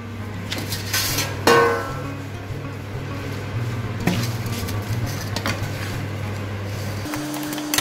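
A metal spoon scrapes and scoops crumbly mawa barfi mixture into a stainless steel plate, with several scrapes and a ringing clink of spoon on steel, over a steady low hum.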